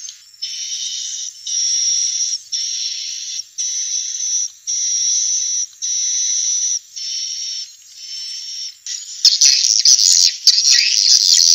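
Recorded swiftlet calls, of the kind played to lure swiftlets to a nesting house: buzzy chattering calls about a second long, repeated about eight times with short gaps, then from about nine seconds in a denser jumble of chirps and clicks.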